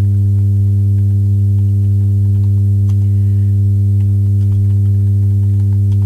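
Loud, steady low electrical hum with a ladder of evenly spaced overtones, an audio fault of mains hum that runs through the whole recording, with a few faint clicks.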